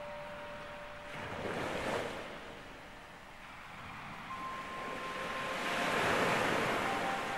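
Ocean surf washing onto a beach, the rush swelling twice, about 2 seconds in and again more strongly near the end. A few soft held tones sound beneath it.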